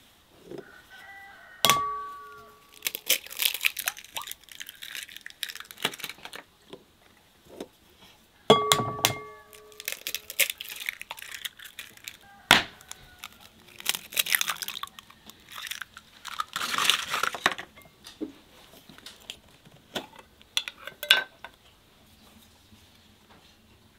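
Eggs being cracked on the rim of a glass mixing bowl, several in turn: each sharp tap sets the bowl ringing briefly, then comes a crackle of shell as it is pulled apart and the egg drops in.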